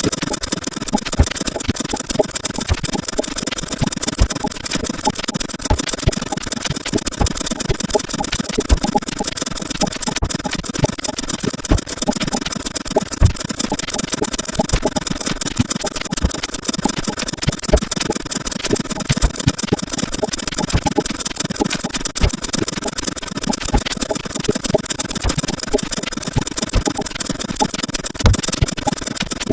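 A dense, unbroken jumble of rapid clicks, ticks and short sound-effect fragments, sped up so far that they run together into a steady rattling hiss.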